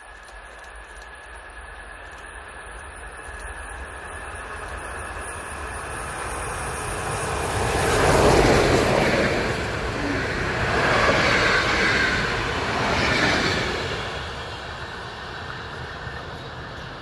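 Steam locomotive 01 519, a reconstructed class 01.5 Pacific express engine, approaching and running through at speed. The running noise builds steadily to its loudest about eight seconds in, swells twice more as the rest of the train passes, then fades away.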